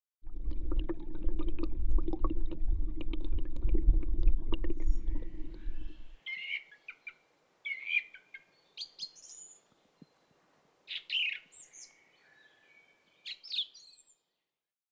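Water running underwater, a loud low rumble with a steady hum and many small ticks, for about the first six seconds, stopping suddenly. Then birds chirping: short separate calls and whistles, some gliding, scattered through the rest.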